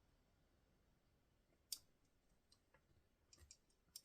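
Mostly near silence, broken by a few faint metallic clicks of a tool working in a Clejuso handcuff lock: one sharp click a little under two seconds in, then a small cluster of clicks near the end.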